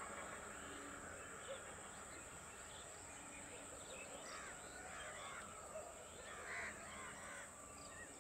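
Faint bird calls, many short rising-and-falling notes, busiest in the middle and latter part, over a steady high-pitched hiss.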